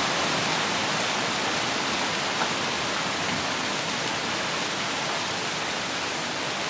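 Heavy downpour of rain mixed with hail, a dense steady hiss of falling water and ice.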